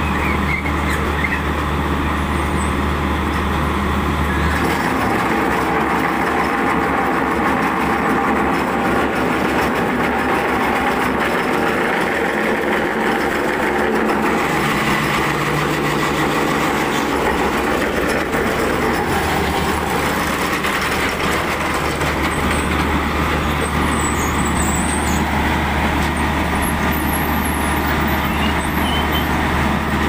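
Concrete block-making machine running: a loud, steady mechanical din with a deep hum underneath. The hum stops about five seconds in and comes back about seventeen seconds in.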